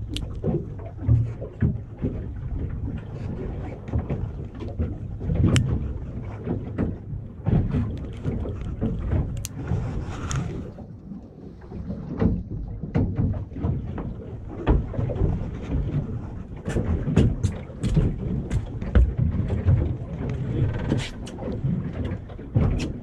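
Wind buffeting the microphone over the low rumble of a small fishing boat, with scattered short clicks and taps from hands working fishing line through a knot-tying tool.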